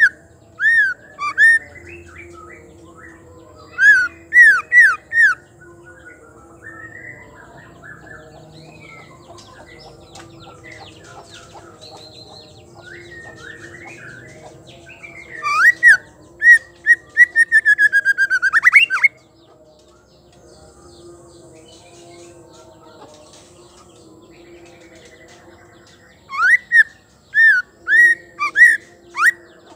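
White-rumped shama calling in loud, sharp, rising whistled notes, which the uploader presents as a female's voice. The notes come in short groups at the start, around four seconds in and near the end, with a fast run of repeated notes from about fifteen to nineteen seconds in. Softer chirps fill the gaps, over a faint steady hum.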